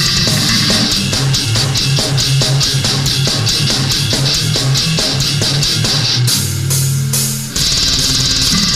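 Metal band recording: fast drums, distorted electric guitars and bass playing a stepping low riff. About six seconds in, the drums drop out under a held low note, and the full band comes back in about a second and a half later.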